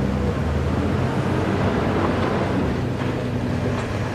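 Large diesel engine of a hydraulic log loader running with a steady, low drone.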